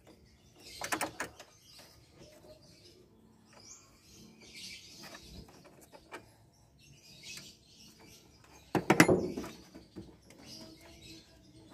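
Metal hand-tool clicks and clatter at a car battery's negative terminal as the cable is undone with a wrench. There is a quick run of clicks about a second in and a louder clatter near the end.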